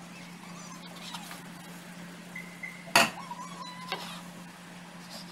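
Kitchen knife knocking against the countertop as it cuts through rolled dough: one sharp clack about three seconds in and a lighter one about a second later, over a steady low hum.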